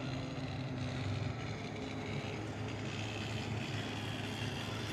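Motorboat engine running steadily with a low, even hum.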